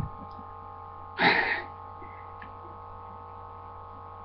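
A short, sharp burst of breath about a second in, from a person straining while hanging from a pull-up bar, over a steady electrical hum. A soft knock comes right at the start.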